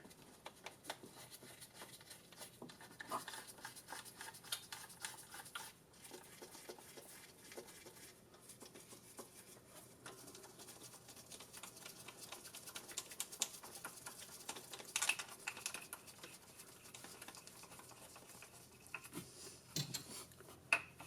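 Scattered light metallic clicks and taps of hand work on a small engine as the valve cover and its bolts are fitted back on, with a few sharper knocks now and then.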